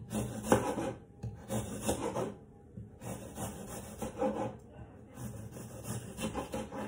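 Kitchen knife slicing an apple on a plastic chopping board: four bouts of cutting strokes through the fruit and onto the board, with short pauses between.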